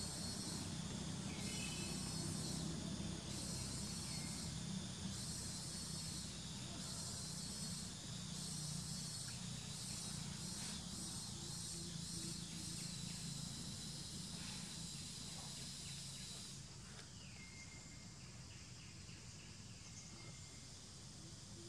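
Forest ambience of insects: a high, hissing drone that pulses on and off in stretches of about a second, then cuts off suddenly about three-quarters of the way through. A few short, falling bird whistles sound over it, with a low hum underneath.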